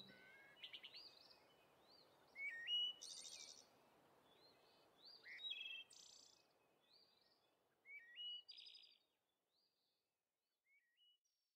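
Faint birdsong: short rising chirps and quick trills that thin out and fade away after about nine seconds, with two last small chirps near the end.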